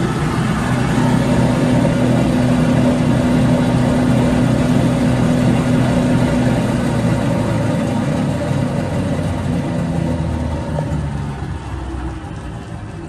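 First sanding head of a Timesaver 2221 wide belt sander running on its own: a steady, loud machine hum with a few pitched tones, winding down and fading over the last few seconds.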